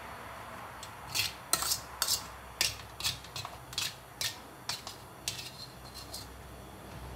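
Stainless steel tongs scraping and clicking against a perforated metal strainer bowl as fried fish pieces are picked out of it: about a dozen short, sharp scrapes at an uneven pace, stopping about a second before the end.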